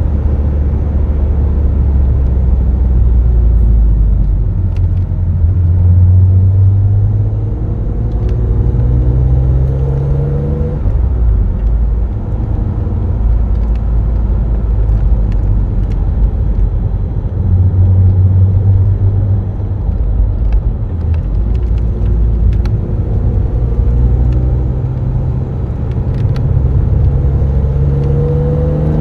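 The BMW Z3 M Roadster's naturally aspirated 3.2-litre straight-six, heard under way. Its revs climb over roughly the first ten seconds and drop abruptly at about eleven seconds. It then runs fairly steadily before the revs rise again near the end.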